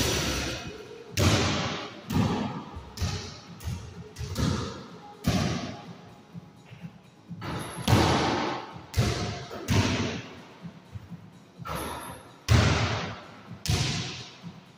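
Basketball bouncing off the floor, walls and backboards in a small hard-walled room. There are a dozen or more thuds, about one a second and unevenly spaced, each ringing on in a short echo.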